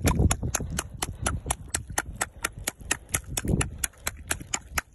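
Fishing reel's ratchet clicking rapidly and evenly, about eight clicks a second, while a fish is played through an ice hole. Dull handling thuds come near the start and again about three and a half seconds in.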